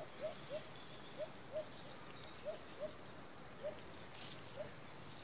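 Short, low chirping calls of a small animal, about a dozen at uneven intervals, each a quick rise and fall in pitch, over a steady high-pitched hum.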